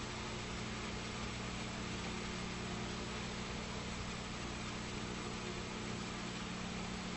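Steady hiss with a low, even hum underneath, the background noise of an old, worn television recording, with no other sound.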